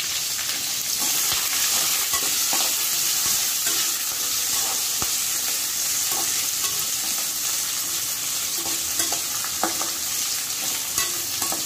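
Chopped capsicum, green chillies and curry leaves sizzling in hot oil in a kadai while being sautéed for a tempering. A metal slotted spatula stirs them, scraping and clicking against the pan every so often.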